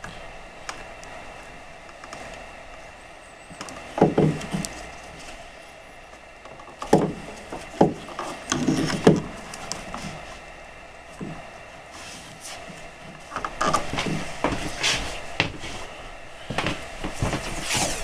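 Hands twisting plastic wire nuts onto the switch wires and working the wires at a plastic electrical box: irregular clicks, scrapes and rustles in short clusters.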